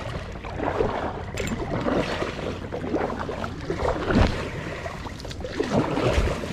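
Kayak paddle strokes splashing while reeds and grass brush and scrape along the plastic hull and paddle as the small kayak is forced into a reedy bank, with a couple of dull knocks in the second half.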